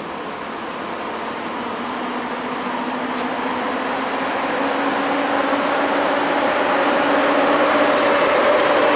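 EP07 electric locomotive pulling out with a passenger train: its motors hum with a tone that rises slowly in pitch as it gathers speed, growing steadily louder as it draws near and passes.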